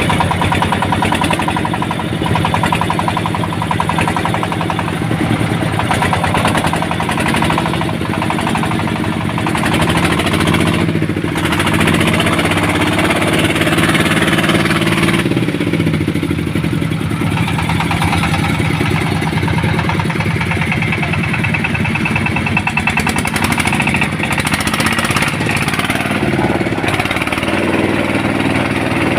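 An engine running steadily, its pitch rising and falling about a third of the way in and shifting again near the end.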